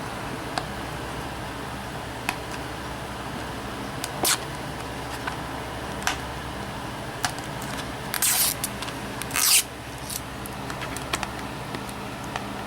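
Fingers picking at a Blu-ray box set's plastic packaging: scattered small clicks and a few short scraping, crinkling rustles, the loudest two about two-thirds of the way in, over a steady low hum.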